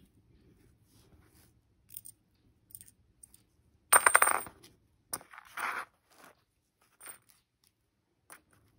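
A small metal bottle-cap pendant blank set down on a cardboard-covered table, clattering with a brief metallic ring about four seconds in. A second, softer rattle follows about a second later, with light taps of handling before and after.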